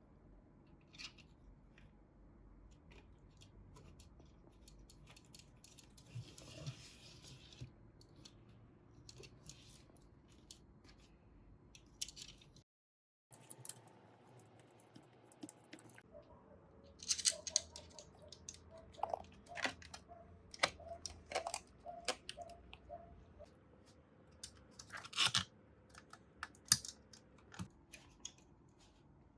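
Scattered clicks and light taps of small parts being handled and fitted together. They are denser and louder in the second half, with a short hiss about six seconds in.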